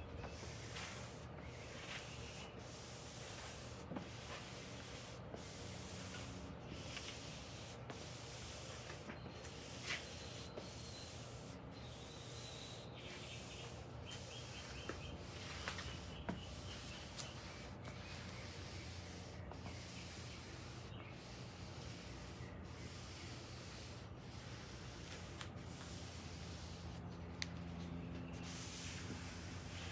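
Hand applicator pad rubbed back and forth over an epoxy-and-wood tabletop, spreading a coat of finish: steady rhythmic rubbing with a short break about every second and a half as the stroke turns.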